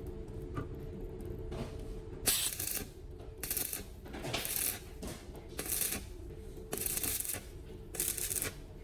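Rhythmic rasping strokes, about one a second, each lasting around half a second, starting about two seconds in.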